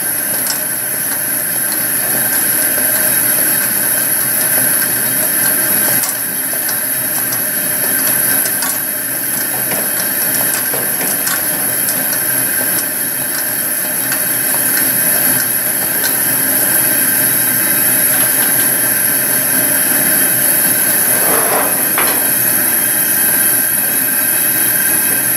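Pressurized burner of a Coleman 426 white-gas camp stove burning with a steady hissing roar, with a few faint clicks.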